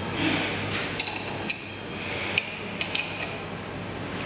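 Steel spanner clinking against the nut and bracket of a trailer shock absorber's bolt as it is fitted and tightened: a handful of sharp, ringing metallic clinks, the first about a second in and several close together near the end.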